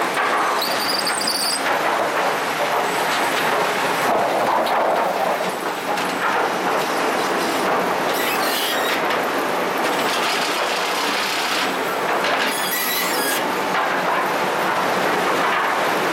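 Lumber stacking machine running, a steady mechanical clatter from its chain conveyors moving boards. Brief high metal squeals come about a second in and again near the end.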